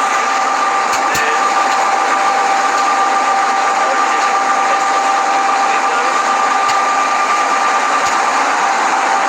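A boat's engine running steadily with a constant high whine over a hiss, and a few faint knocks.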